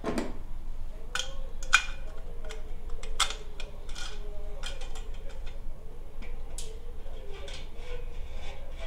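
Irregular metallic clinks and knocks of tools and exhaust hardware as the stock muffler is worked off a Harley-Davidson Dyna, the sharpest about two seconds in.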